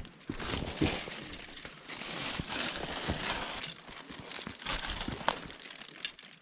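Continuous crinkling and rustling of something being handled, with scattered small clicks and clinks.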